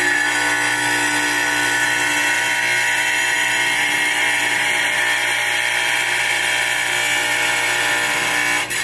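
Electric wet tile saw running and cutting through a ceramic wall tile with a steady, high-pitched whine; the sound stops suddenly near the end.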